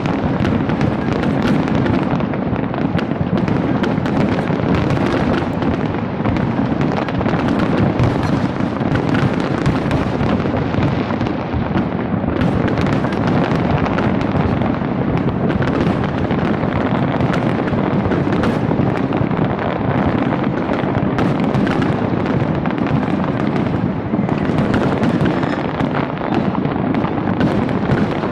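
A large fireworks display going off without pause: a dense, unbroken run of booms and sharp cracks, many shells bursting at once.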